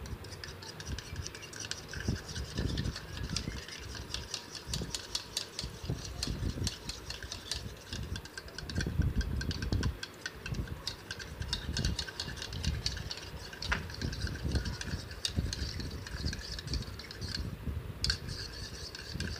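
A single egg being beaten with a spoon in a small bowl: quick, irregular clicks of the spoon against the bowl over the soft swish of the egg.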